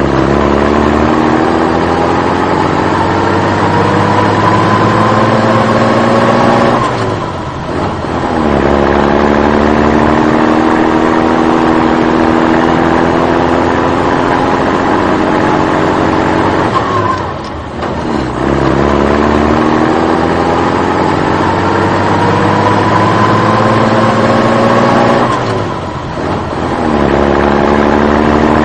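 Engine sound effect of a motor vehicle accelerating: the engine pitch climbs steadily for about eight seconds, drops off briefly, then runs up again the same way, about three times in a row as a repeating loop.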